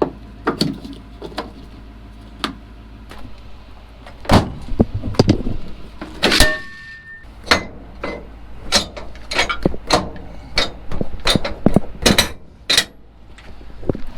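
Repeated sharp metal knocks and clanks, thickening from about four seconds in, over the steady low hum of a vehicle engine running, with a brief squeak about six and a half seconds in.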